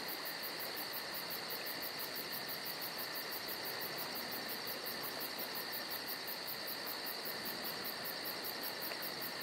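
Steady chorus of insects: a fast, even, high-pitched pulsing over a constant hiss.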